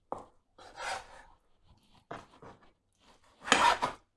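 Kitchen knife slicing through raw beef on a wooden cutting board: a few separate cutting strokes about a second apart, the loudest near the end.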